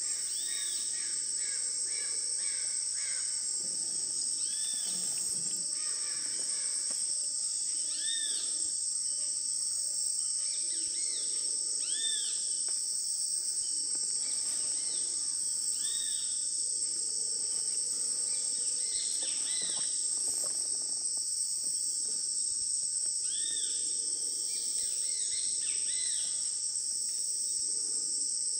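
Steady shrill chorus of rainforest insects, with a bird repeating a short rising-and-falling call every few seconds.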